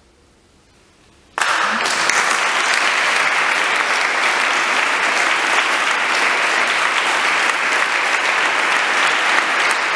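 A quiet moment, then an audience breaks into applause about a second and a half in, and it goes on steadily.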